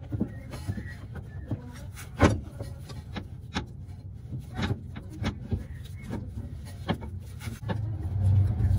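Steering rack of a Honda Accord being worked up into place under the car: irregular metal knocks and scraping, with one louder knock about two seconds in. A low hum swells near the end.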